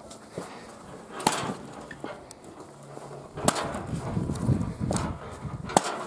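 Homemade spring-loaded lever log splitter chopping birch logs: four sharp wooden knocks as the weighted blade strikes and splits the wood, the loudest near the end, with rustling of logs being handled in between.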